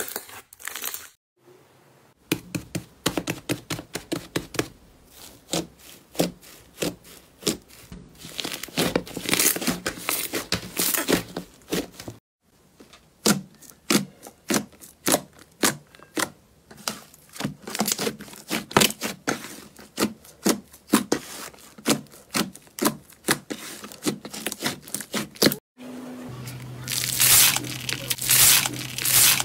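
Hands squeezing and poking slime, making long runs of quick sharp clicks and pops. Near the end, a hand pressing into a bowl of small foam beads gives a denser crunching rustle over a low hum.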